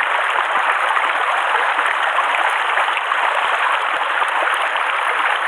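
Steady rushing water of a mountain stream, mixed with rain falling on the water, with a few faint taps.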